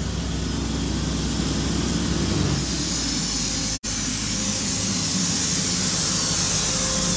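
Steady city background noise: a low engine-like rumble, with a brief dropout a little past halfway, after which a brighter hiss dominates.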